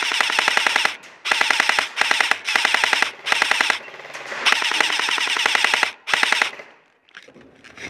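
M4-style airsoft rifle firing on full auto in a string of short rapid bursts, about seven in all, the longest near the middle. The firing stops about six and a half seconds in.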